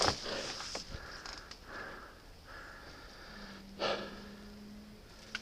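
A person breathing hard close to the microphone after heavy exertion, with one short knock about four seconds in and a faint steady hum in the second half.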